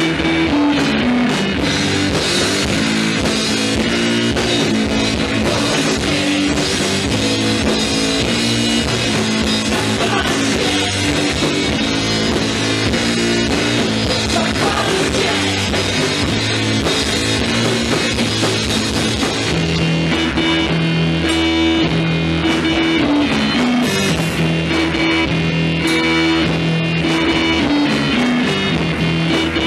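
Live rock band playing loud and without a break: electric bass guitar, drum kit and keyboard synthesizer together.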